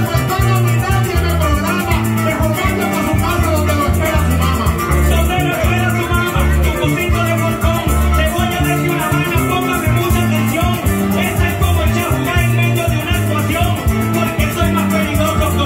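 Live Venezuelan llanero joropo music: llanero harp, cuatro and electric bass playing a driving rhythm, with maracas shaken steadily throughout, and a man singing into a microphone over it.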